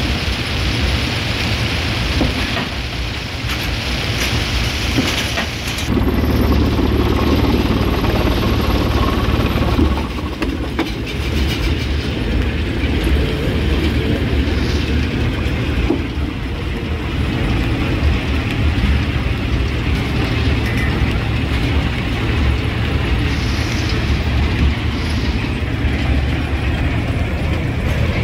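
Rock crusher running and crushing stone: a steady heavy machine rumble with a constant clatter and cracking of rocks being broken. It gets louder and deeper about six seconds in, then eases a little about four seconds later.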